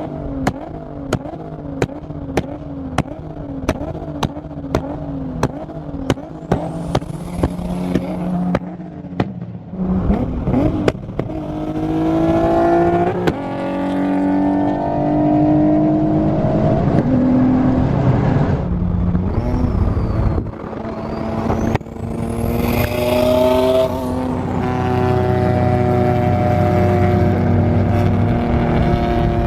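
Supercar engine under hard acceleration, its revs climbing and dropping several times as it pulls through the gears. A regular sharp clicking about twice a second comes before the engine takes over, about ten seconds in.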